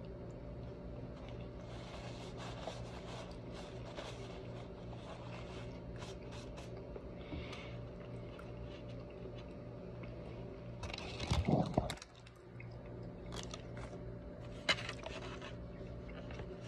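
Mouth noises of someone eating a burrito: chewing and crunching with scattered small clicks, over a steady low hum. A brief louder low burst comes about eleven seconds in, and a sharp click a few seconds later.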